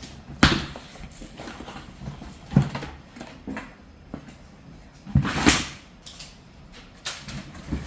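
Cardboard box being opened and its foam packing handled: a few separate knocks and rustles, with a longer, brighter rustle about five seconds in.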